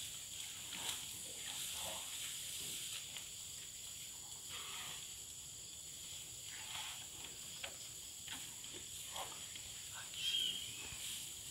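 Steady high-pitched drone of rainforest insects, with scattered soft rustles and a short high chirp about ten seconds in.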